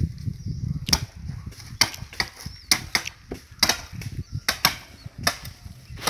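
Large machete blades chopping into palm-tree logs: about ten sharp blows, some coming in quick pairs.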